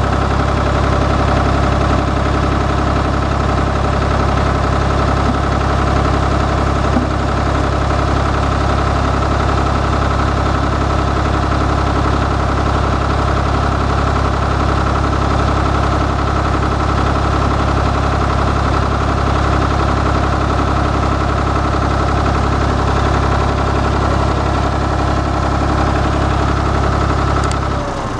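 Small Ford tractor's engine running steadily at idle after a jump-start with a battery booster, its starter solenoid failing.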